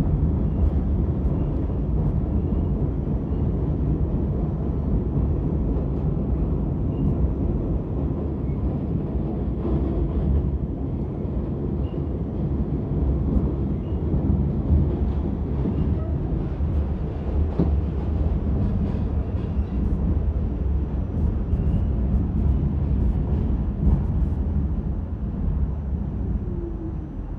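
R46 subway car running at speed, heard from inside the car: a steady low rumble of wheels on rail with faint scattered ticks. It goes quieter near the end as the train pulls into a station.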